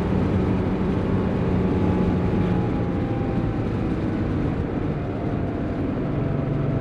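Air-cooled 3.2-litre flat-six of a 1987 Porsche 911 Carrera running under way, heard from inside the cabin over tyre and road noise. The engine note falls slowly over the first few seconds, then holds steady at a lower pitch near the end.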